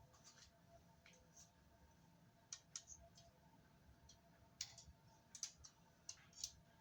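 Faint, scattered sharp clicks and light taps, a few in the first half and more frequent in the second half, over a quiet room with a faint steady hum.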